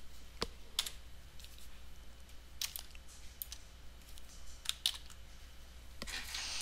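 Scattered clicks and taps of a computer keyboard and mouse, about eight to ten short sharp clicks spread unevenly over several seconds, over a faint low hum.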